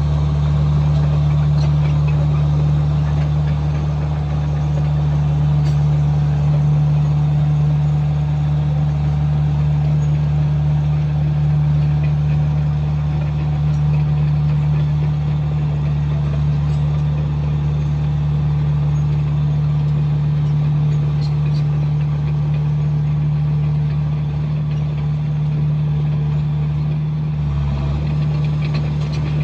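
Komatsu bulldozer's diesel engine running steadily, a constant low drone with a brief dip in tone near the end.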